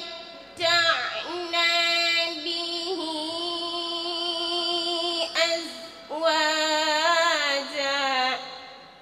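A girl's voice chanting Quranic verses in melodic tajweed recitation, with long drawn-out held notes in two main phrases and a short pause for breath between them. It stops near the end.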